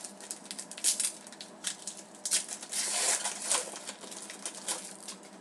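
Crinkling of a trading-card pack's foil wrapper being handled and torn open, with quick rustles and clicks, busiest in the middle.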